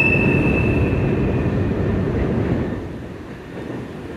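Freight train of double-stack container cars passing over a steel girder bridge: steady heavy rumble of wheels on rail. A high, steady wheel squeal sounds over it and fades out within the first couple of seconds, and the rumble drops somewhat about three seconds in.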